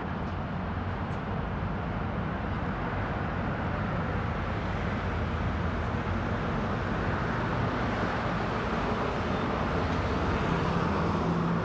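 Steady outdoor city ambience: a continuous rumble of street traffic, even throughout.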